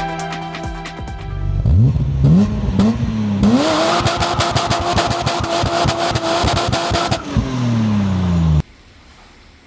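Music fades about a second in. Then a BMW straight-six engine revs up in a few rising pulls, holds high revs for about four seconds, and drops back. The sound cuts off suddenly near the end.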